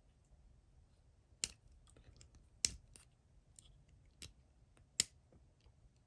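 Sharp metal clicks from a Victorinox Swiss Champ XXL multi-tool being handled, its stacked tools and springs ticking as it is turned in the hand. Four louder clicks stand out, about a second apart, among fainter ticks.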